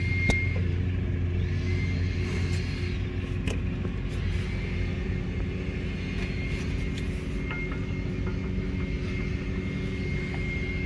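Steady low rumble of a running engine, with a constant low hum, and a few faint light clicks.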